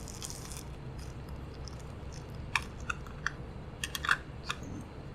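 Sharp, irregular plastic clicks and taps, about eight of them from about halfway in, as the Logitech MK220 combo's wireless mouse is handled, with a brief rustle at the start.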